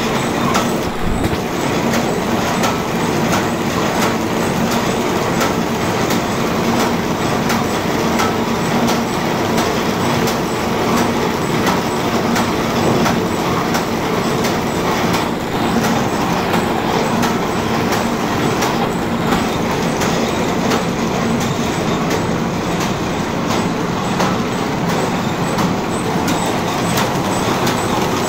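Paper bag making machine running at speed: a steady mechanical clatter with a regular click on each cycle and a low hum underneath.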